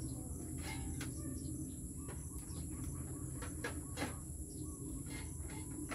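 Outdoor rural ambience: a steady high insect drone with scattered short bird chirps and faint clicks, one sharper click about four seconds in.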